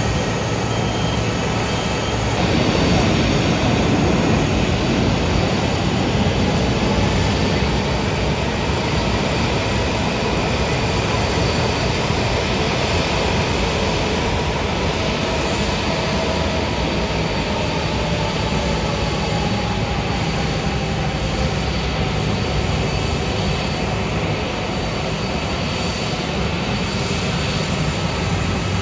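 Jet engines of a taxiing Airbus A330 airliner at low thrust: a steady rumble and hiss with a faint engine whine that slowly drops in pitch as the aircraft turns away.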